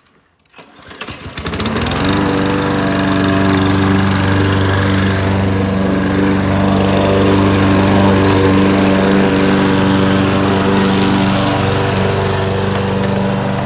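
Craftsman gas push mower being pull-started: a few quick rattles of the starter, then the engine catches about a second and a half in, rises in pitch and settles into a steady run.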